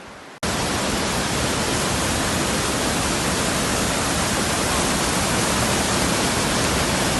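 Steady loud rushing of river water pouring over a waterfall and through a narrow rock channel, cutting in abruptly about half a second in.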